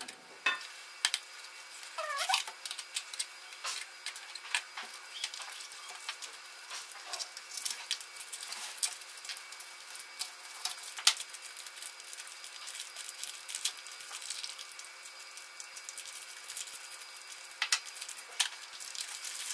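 Cardboard and plastic packaging being handled and opened: scattered sharp clicks, crackles and crinkles as a small toy box is slit with a table knife and the plastic bags inside are pulled out and crumpled. A short rising squeak about two seconds in.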